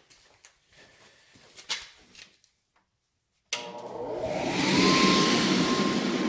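Inflatable bouncy-house blower that feeds air to a ribbon burner forge, switched on about three and a half seconds in. Its motor spins up with a rising whine over about a second, then runs steadily with a loud rushing noise. It is started before the gas, so that gas cannot flow back through the burner's mixing chamber.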